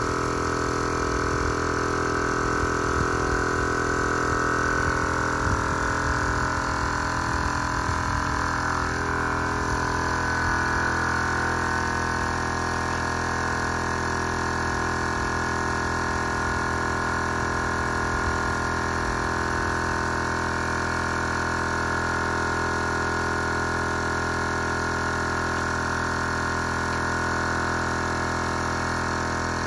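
Small electric piston air compressor running steadily, feeding a paint spray gun: a constant motor hum with a rougher low end during the first ten seconds or so.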